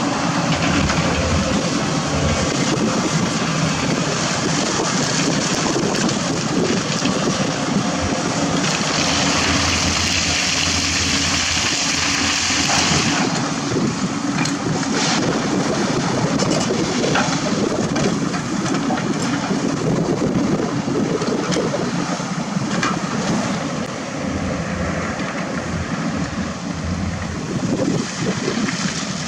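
Diesel engines of heavy equipment, excavators and a dump truck, running steadily, with a rushing noise over them. The sound changes about halfway through.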